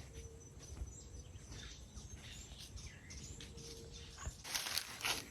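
Outdoor farm ambience with a few faint bird chirps, then a short spell of louder rustling near the end.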